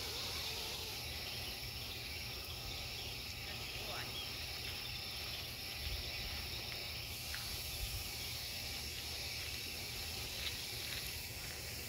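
Outdoor summer ambience: a steady high insect drone, with a low rumble under it and a brief faint chirp about four seconds in.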